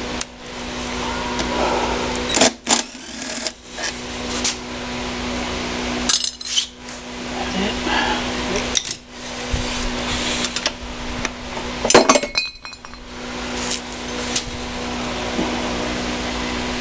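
Hand tools clinking and knocking on metal while a small Briggs & Stratton mower engine is taken apart, in a handful of sharp knocks with a quick run of clicks about twelve seconds in. A steady hum lies underneath.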